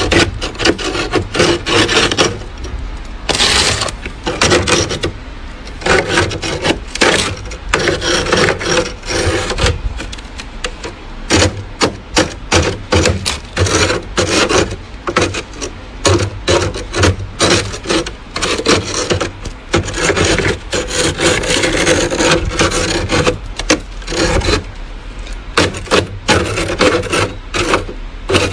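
Metal spoon scraping soft freezer frost off the inside wall of a freezer, in many short, irregular rasping strokes.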